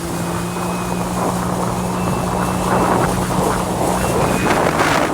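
Jet ski engine running steadily at speed, with rushing wind and water noise that grows louder past the halfway point.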